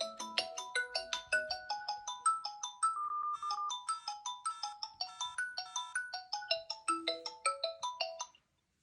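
Huawei Honor 8 Lite incoming-call ringtone: a fast melody of short, bright mallet-like notes, several a second, that stops abruptly a little after eight seconds in.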